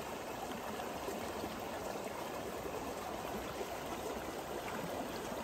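Shallow mountain creek flowing steadily over a bed of pebbles and rocks.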